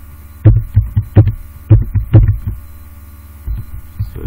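Computer keyboard keystrokes: about eight loud, thudding key presses in the first two and a half seconds, then a few fainter taps, over a steady electrical hum.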